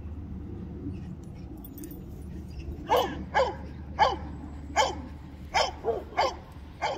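Dog barking: a run of about eight short barks, starting about three seconds in, over a steady low rumble.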